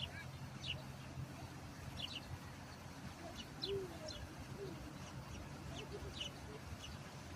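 Birds chirping: short, sharp high chirps repeated at irregular intervals, over a low steady hum.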